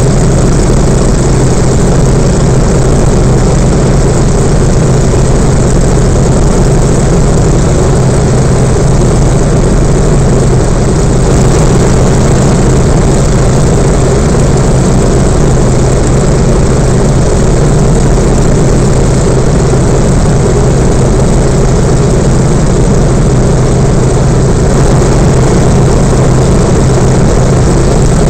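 Yak-52's nine-cylinder Vedeneyev M-14P radial engine and propeller running steadily in flight, heard loud from inside the cockpit.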